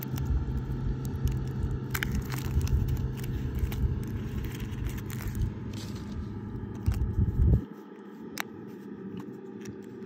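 Kinder Surprise egg's foil wrapper crinkling and its thin chocolate shell cracking, in irregular crackles and clicks, then a sharp click near the end as the plastic toy capsule is snapped open. A low rumble lies under it and cuts off about three quarters of the way in.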